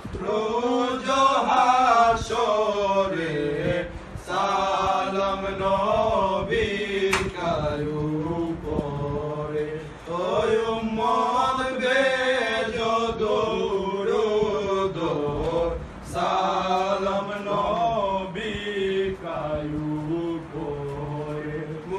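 Male voices chanting a Bengali jari-salam devotional song without instruments, in long held phrases that rise and fall in pitch, with short breaths between lines.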